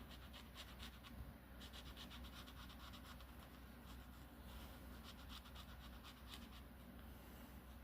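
Faint scratching of a paint marker's nib on paper in quick back-and-forth colouring strokes, coming in short runs.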